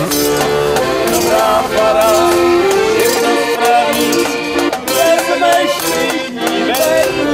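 Folk tune played on an accordion, with rattling percussion strokes keeping the beat.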